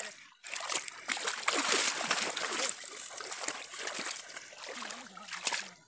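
Water splashing and sloshing as people wade through shallow river water while hauling a fishing net, busiest and loudest about two seconds in.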